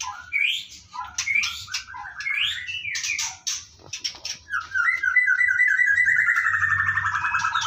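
Shrill chirps and squawks of white-rumped shamas (murai batu), short notes sliding up and down. About four and a half seconds in, a fast, evenly repeating trill starts, dips slightly in pitch and keeps going.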